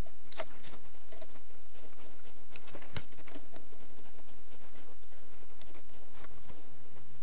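Scattered clicks and light rattles of a plastic cable drag chain being handled while its end is screwed to the laser head, with a sharp click about three seconds in.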